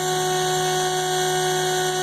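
CNC router spindle running steadily: a constant drone of several fixed tones over a steady hiss.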